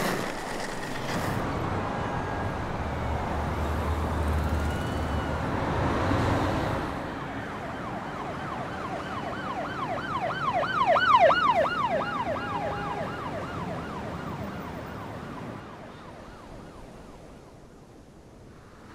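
Emergency vehicle siren in a fast yelp, rising and falling about three times a second over steady road traffic. It comes in about a third of the way through, is loudest a little past the middle, and fades away.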